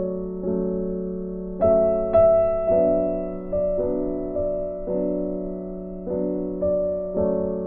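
Background piano music: slow, soft chords, a new one struck about once a second and left to ring and fade.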